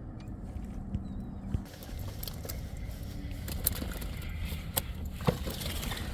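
Steady low rumble with a faint hum on a fishing boat, broken by a few short knocks and clicks as freshly caught skipjack herring and the jig rig are handled.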